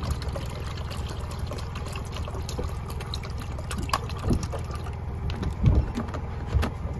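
Water poured from a plastic bottle into the water tank of a Philips automatic espresso machine, trickling and splashing, over a steady low hum. A few low thumps come in the second half.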